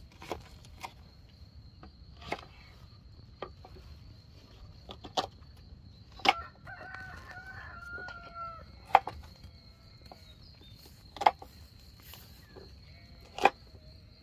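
Knife cutting onions on a wooden cutting board: several sharp knocks of the blade hitting the board, a second or more apart. A rooster crows once, starting about six seconds in and lasting about two seconds.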